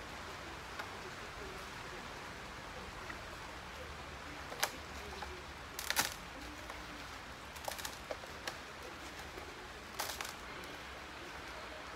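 Hands working at a potted rubber plant and its plastic pot, making a few short sharp clicks and rustles over a steady background hiss. The loudest click comes about six seconds in.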